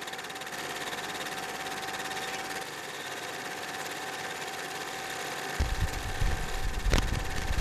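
Film projector running: a steady rapid mechanical clatter with hiss and a held whine. A low rumble joins about five and a half seconds in, and a sharp click comes about seven seconds in.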